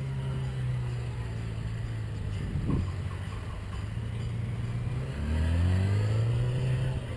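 Motorcycle engines running during tight low-speed gymkhana manoeuvres, with a steady engine note. A short blip of the throttle comes about three seconds in, and from about five seconds in one engine revs up louder with rising pitch as the bike accelerates.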